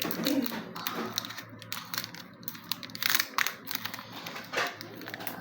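Foil wrapper of a Pokémon TCG booster pack crinkling and rustling as it is handled and opened, with scattered small crackles and clicks.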